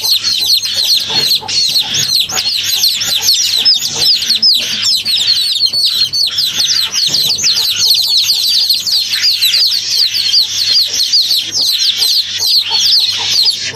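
Many birds calling at once: a dense, continuous chorus of short, high, downward-sliding chirps.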